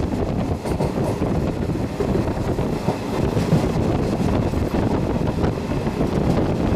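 Steady rumble of a running train heard from on board, with wind buffeting the microphone.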